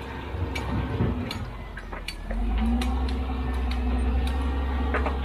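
Diesel engine of a heavy construction machine running, stepping up under load about two seconds in with a steady whine on top, and scattered sharp clicks and knocks.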